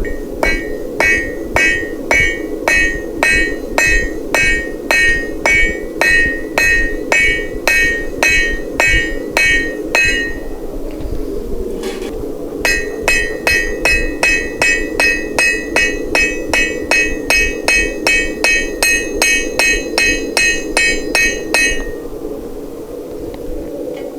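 Blacksmith's hammer striking hot steel on an anvil, each blow ringing, in two long runs of about two to three blows a second with a pause of roughly two seconds between them. A steady low rushing noise runs underneath.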